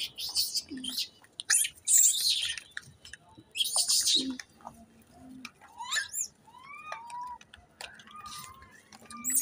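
Young macaques squealing around a feeding bowl: a few loud, harsh squeals in the first half, then thinner rising-and-falling chirps.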